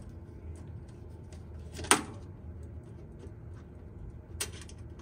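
Hand screwdriver backing T25 screws out of a boiler's sheet-metal base, mostly faint ticks and scrapes, with one sharp loud click about two seconds in and a smaller click near the end.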